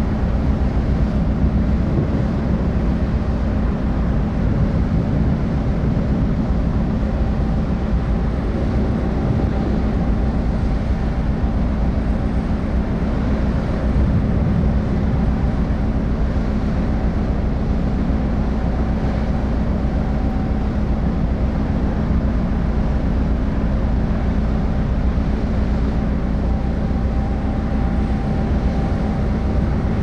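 Steady low rumble of ship engines and machinery, with a faint high whine coming and going over it.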